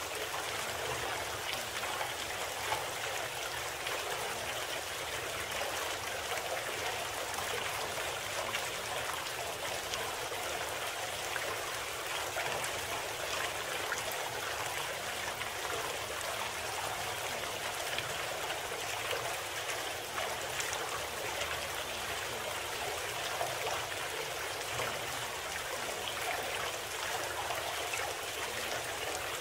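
Steady sound of flowing water like a stream, unchanging throughout, serving as the audible bed of a subliminal audio program.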